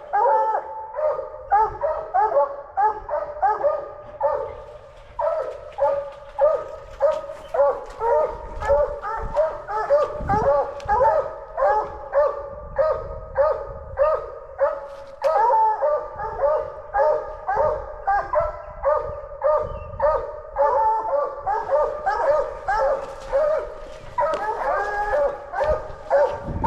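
Coonhounds barking in a steady, overlapping run of about two barks a second, with more than one dog voicing at once.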